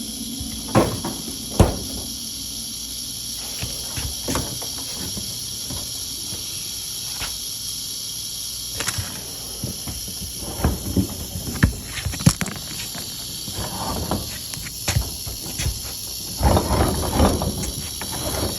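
Canebrake rattlesnake rattling, a continuous high buzz that does not let up, the sign of a defensive, agitated snake. Over it come intermittent knocks and scrapes of a tool working against the refrigerator and floor, bunched near the start, around the middle and near the end.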